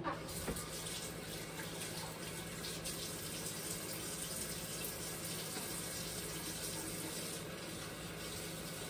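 Kitchen tap running steadily into a sink, with a couple of light knocks at the very start.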